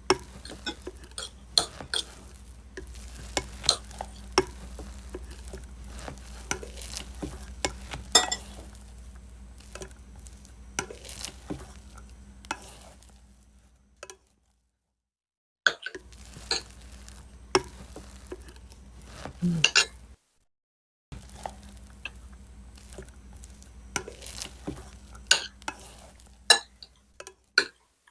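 Close-miked eating: chewing with many sharp clicks and smacks over a steady low hum. The sound cuts out abruptly twice, about halfway through and about two-thirds through.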